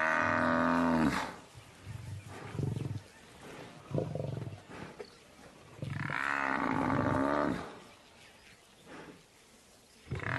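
Cape buffalo cow bellowing in distress as lions drag her down: a long, drawn-out bellow at the start, another about six seconds in and a third beginning at the end, with short, quieter grunts between. These are distress calls that can bring the buffalo herd back to defend her.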